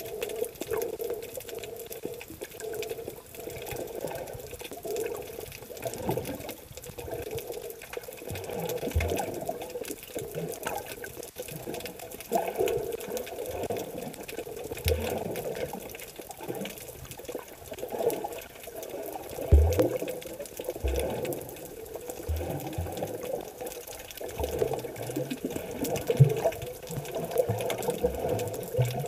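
Muffled underwater water noise heard through a submerged camera, swelling and fading every few seconds, with several short low knocks in the second half.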